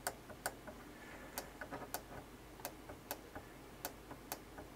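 Small tactile push buttons on a Pi1541 board clicking as they are pressed again and again, to step through files. There is a sharp click about every half second, often followed by a fainter one.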